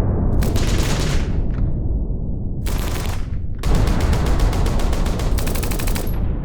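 Machine-gun fire in three bursts of rapid shots, the last and longest running about two and a half seconds, over a continuous low rumble of battle.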